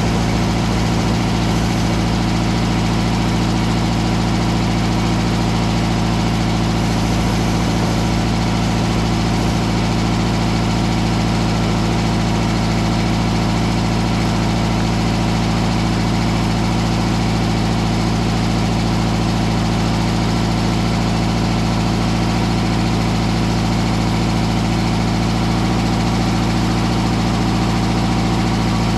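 Mobile Dimension circular-blade sawmill's engine running loudly and steadily, its pitch unchanging.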